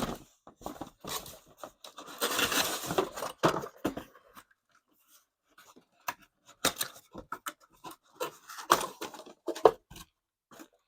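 Packaging being handled during an unboxing: a rustling, tearing stretch about two seconds in, among many short clicks and knocks of parts and packing being moved.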